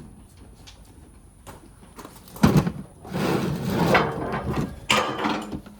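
Objects being handled and shifted in a box: a sharp knock about two and a half seconds in, then a second or so of scraping and rustling, and another clatter near the end.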